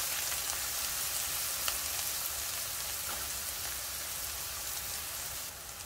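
Chopped onions, garlic, green onions and cilantro sizzling in olive oil in a frying pan: a steady hiss with a few faint ticks. It drops a little quieter just before the end.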